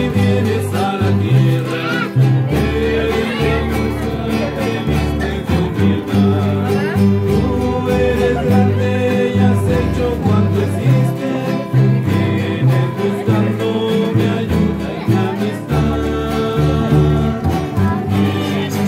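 A choir singing to several strummed acoustic guitars, over a deep plucked bass line.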